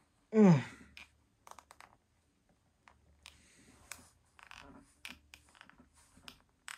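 Faint clicks and scratches of a small plastic mini figure being handled and pushed onto its display stand. About half a second in comes a short groan that falls in pitch.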